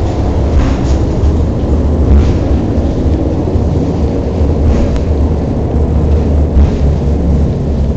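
Prague funicular car running along its track, heard from inside the car: a loud steady low rumble with a few brief rattles or clicks scattered through it.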